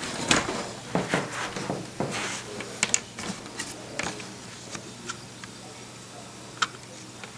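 Lego bricks clicking and clattering, with sharp plastic knocks at irregular intervals, several in the first few seconds and a lone one near the end.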